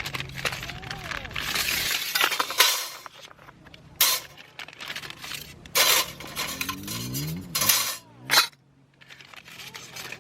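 Camp gear being handled: a handful of sharp clinks and knocks at uneven intervals, with rustling in between.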